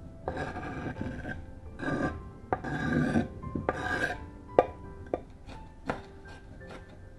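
Kitchen knife scraping diced red onion off a wooden cutting board into a glass dish, in four rasping strokes, followed by a few sharp knocks of the knife on the board.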